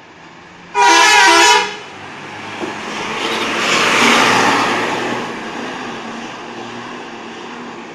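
A bus's multi-tone 'telolet' horn sounds loudly for about a second, then the bus passes close by, its noise swelling and fading away.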